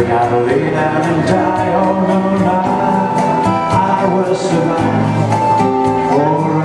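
Live male vocal singing with a classical guitar and an electronic keyboard, over a steady beat.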